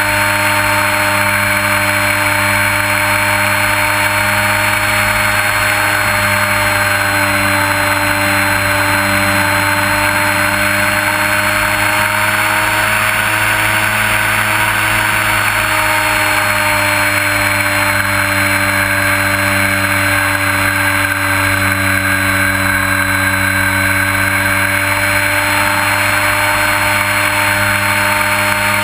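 Radio-control Trojan T-28 model airplane's motor running at a nearly steady pitch in flight, with a rushing hiss of air over the onboard camera's microphone.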